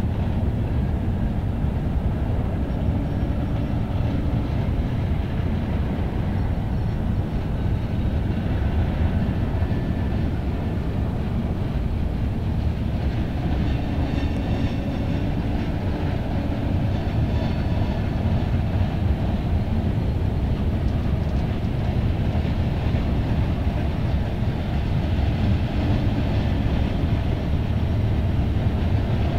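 Freight train cars rolling past with a steady, dense rumble.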